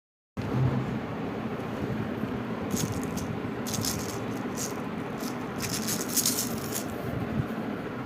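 Irregular bursts of rattling over a steady background hiss, thickest a little past the middle.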